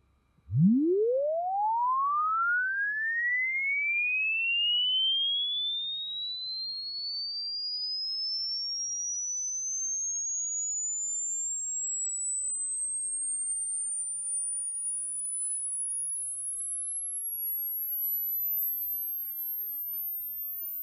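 A sine-wave test sweep played through a JBL Control 2P powered monitor with newly replaced speaker foam. It starts suddenly about half a second in and glides steadily upward from a deep low tone to a high whistle.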